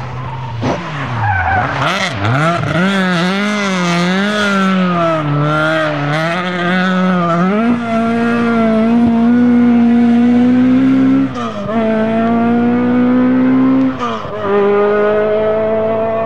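Ford Escort Mk2 rally car's four-cylinder engine, the revs rising and falling on and off the throttle as the car slides through a bend, then pulling hard and climbing steadily as it accelerates away, with two upshifts in the second half.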